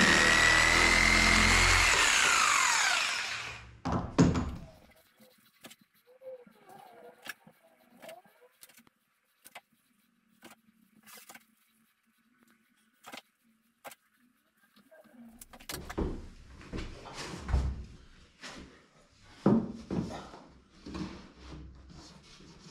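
Corded Bosch jigsaw cutting a wooden board, its motor whine rising and then winding down after about three seconds. A couple of knocks follow, then a long near-quiet stretch with scattered clicks, and in the last third a run of irregular knocks and scrapes.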